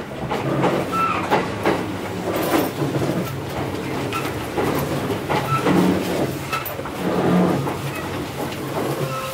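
Kintetsu 8810-series electric train standing at a station platform, its onboard equipment giving a steady low hum, with irregular knocks and clatter throughout.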